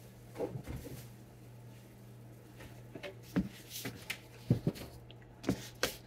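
Scattered short knocks and rustles of groceries being handled and lifted out of a paper grocery bag, a few sharper knocks around the middle, over a steady low hum.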